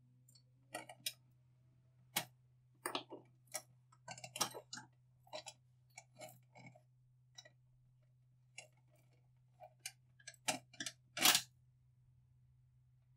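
An irregular series of sharp clicks and knocks, with a louder knock about eleven seconds in, over a faint steady hum.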